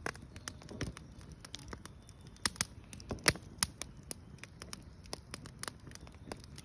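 Wood fire crackling, with irregular sharp pops and snaps, the loudest about three seconds in.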